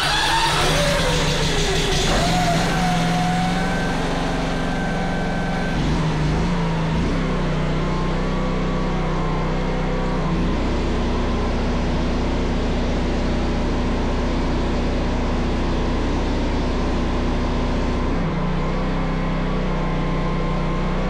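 Predator 670cc V-twin engine running steadily, driving a pressure washer pump. The engine note deepens about ten seconds in, as the spray gun is used and the pump takes load, and returns near the end.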